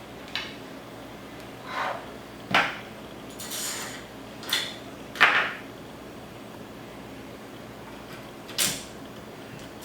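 Irregular short clicks and knocks of small metal parts and a screwdriver being handled while an aluminum-extrusion 3D printer frame is bolted together with M5 screws and T-slot nuts, with a brief scraping rasp about three and a half seconds in.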